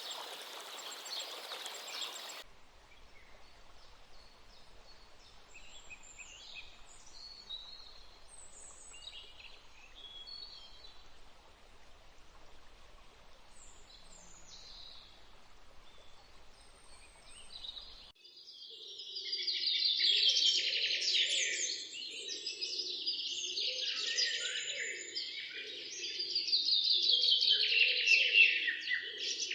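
Birds chirping in outdoor ambience. For the first two seconds a steady rushing noise fills the background. After that come sparse, scattered chirps, and from about eighteen seconds in a louder, dense chorus of bird calls with a lower warbling underneath. The changes are abrupt.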